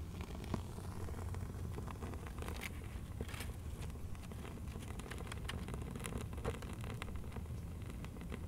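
Dry kindling of twigs, bark and leaves crackling with sparse small snaps as it catches fire from a burning stick in the firebox of a clay rocket stove, over a steady low rumble.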